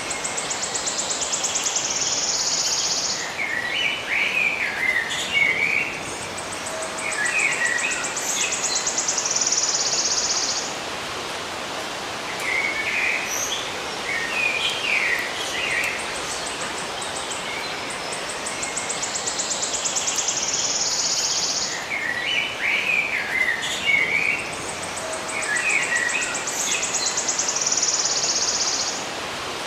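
Birds chirping in short, quick phrases, with a high buzzy trill about three seconds long that comes four times at even intervals, over a steady background hiss.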